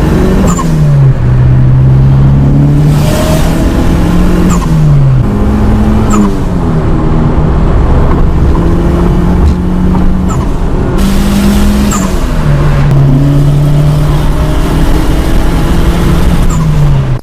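Turbocharged Ford Escort Zetec engine driven through rising and falling revs, recorded inside the car. There are several short releases of boost as the throttle closes between pulls.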